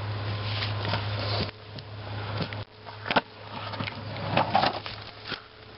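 Longboard wheels rolling on a paved slope: a steady hum that stops a little under three seconds in. About three seconds in there is a sharp clack, followed by a few lighter knocks.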